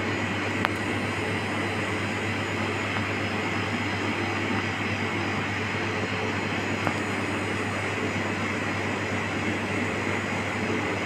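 Steady mechanical hum and rushing noise of a running machine, unchanging throughout.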